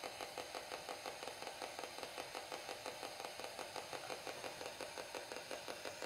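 Faint, rapid rhythmic chatter of a spirit box sweeping through radio stations, about six choppy pulses a second, running steadily while the investigators listen for a spirit's answer.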